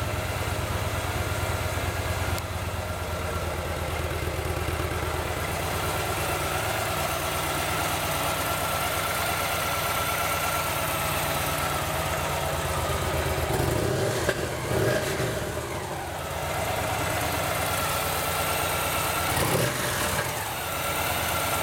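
2016 Victory Cross Country's 106-cubic-inch fuel-injected V-twin idling with an even, pulsing beat, revved briefly about two-thirds of the way through and again near the end.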